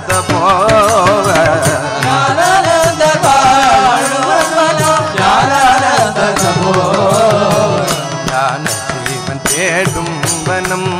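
South Indian devotional bhajan music: a melody with wavering, ornamented pitch over a steady low drone, with regular hand-drum strokes.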